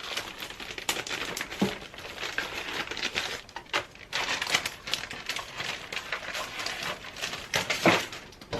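Packaging being handled, crinkling and crackling irregularly with a few sharp clicks and rustles.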